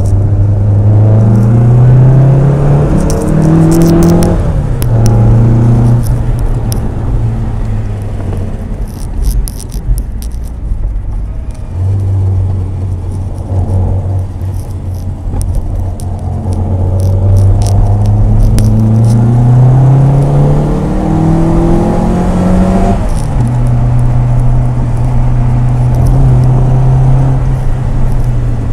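1963 Morris Mini Cooper's four-cylinder engine heard from inside the cabin while driving, pulling up through the gears. The engine note climbs, drops sharply at gear changes about four and six seconds in, runs steadier for a while, then climbs in one long pull before dropping again at another shift near the end and settling to a steady cruise.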